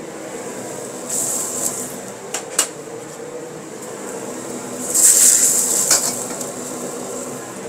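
Food tipped from a plate into hot oil in a wok, sizzling loudly about five seconds in, with a shorter sizzle about a second in, over the steady hum of a commercial wok range. A few sharp metallic clinks of cookware.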